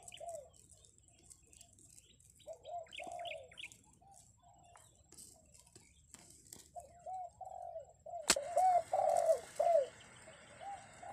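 A wild dove cooing, a series of short arched coos in two bouts, the second louder, with a few brief high chirps from a smaller bird. A single sharp click sounds about eight seconds in.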